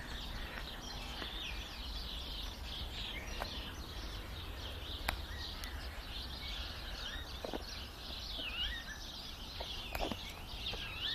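Small birds chirping and singing continuously in quick, wavering notes, over a low steady background rumble.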